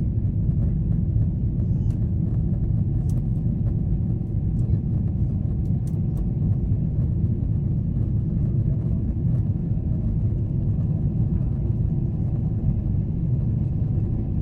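Steady low rumble of a Boeing 777-300ER's cabin in flight: the drone of its GE90 engines and the rush of air over the fuselage, heard from a window seat.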